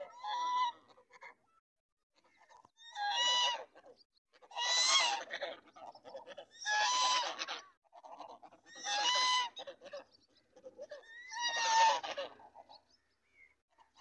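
White domestic geese honking: six loud, harsh honks about every two seconds, with fainter calls between them.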